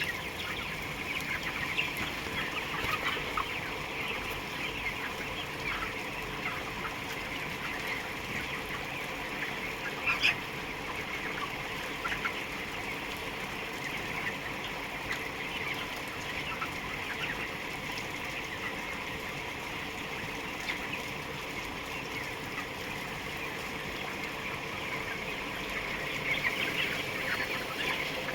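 A large flock of chickens in a poultry house, a dense, continuous chatter of many overlapping calls, with one sharper call about ten seconds in. A faint steady hum runs underneath.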